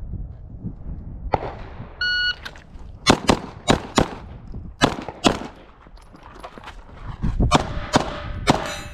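A shot timer's start beep about two seconds in, then a string of pistol shots, mostly fired in pairs, with a short break in the middle. The last shot comes about 6.5 seconds after the beep.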